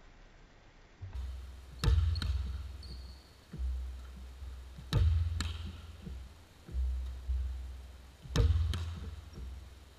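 Basketball bouncing hard on a hardwood gym floor: a string of single pound dribbles, often two close together, each ringing out with an echo in the big gym.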